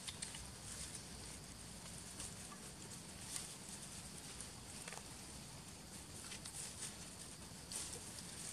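Quiet outdoor ambience: a steady high hiss with scattered faint ticks and rustles.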